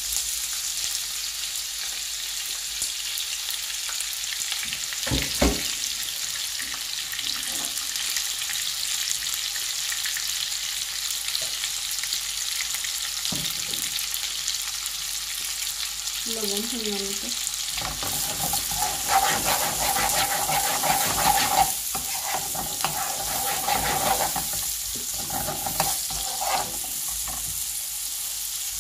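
Sliced onion and green chillies sizzling in hot soybean oil in a non-stick frying pan, with a single knock about five seconds in. From about two-thirds of the way through, a metal spoon stirring them makes the frying louder and adds short scraping strokes.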